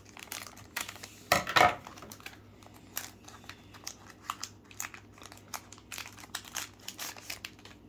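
Plastic trading-card pack wrapper crinkling as it is torn open and handled: irregular crackles with a louder rustling burst about a second and a half in.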